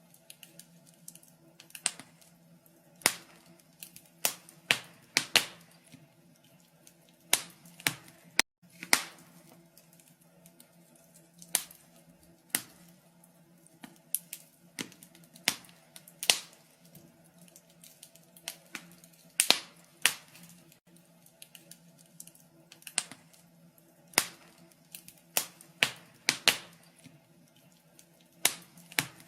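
Wood fire crackling in a fireplace: irregular sharp pops and snaps at uneven intervals, some louder than others, over a faint steady low hum.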